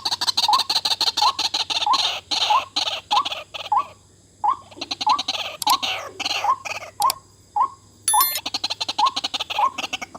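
White-breasted waterhen calling: a short rising note repeated about twice a second over a harsh, rapid rattling chatter, with a brief lull about four seconds in.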